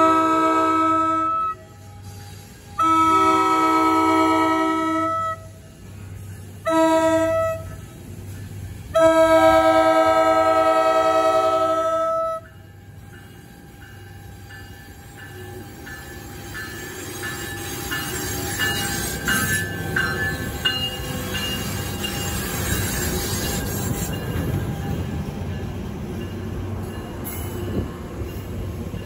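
NJ Transit ALP-45DP locomotive's multi-tone horn sounding the grade-crossing signal: long, long, short, long, over the steady ringing of a crossing bell. The passenger train then rumbles past the crossing, getting louder as the cars go by.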